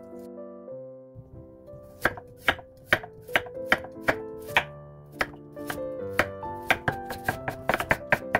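Chef's knife chopping a carrot on a wooden cutting board: sharp knocks about two a second starting about two seconds in, quickening near the end as the carrot is cut into thin strips. Background music plays throughout.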